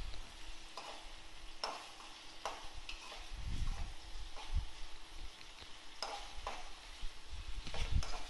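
A metal spatula scraping and knocking against a metal kadai at irregular intervals as onions and tomato pieces are stirred in hot oil, over a light sizzle of frying.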